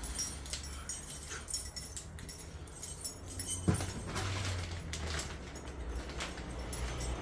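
Small clicks, knocks and light metallic rattles of hands working on the boiler's ignition components, with a louder knock about halfway through, over a low steady hum.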